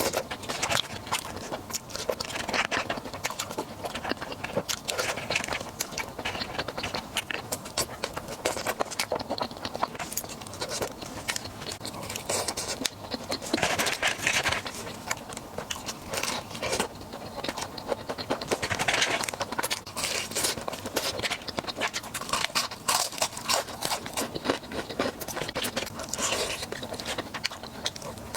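Close-miked eating: a steady run of crunching and chewing on food, with louder bursts of crunching now and then.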